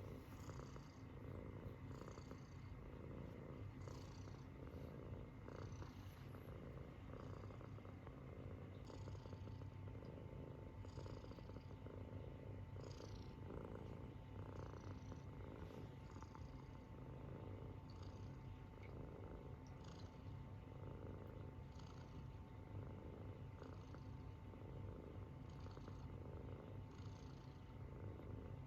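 Munchkin kitten snoring quietly in its sleep, with an even rhythm of about one breath a second.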